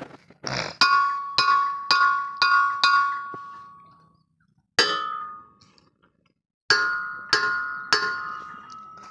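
Hammer blows on the iron head of a hand tube-well pump, each strike ringing on like a bell. A run of five quick blows about half a second apart, a single blow near the middle, then a few more spaced the same way.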